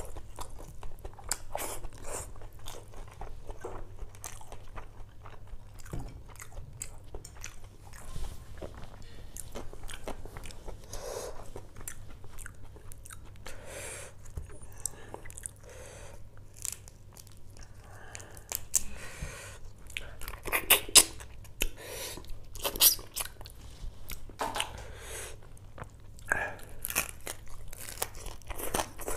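A person eating curried prawns and rice by hand close to the microphone: wet chewing and smacking with crunchy bites, the loudest bites in the second half.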